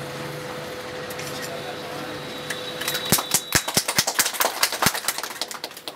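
A small group of people clapping their hands in irregular applause, starting about three seconds in and lasting about three seconds.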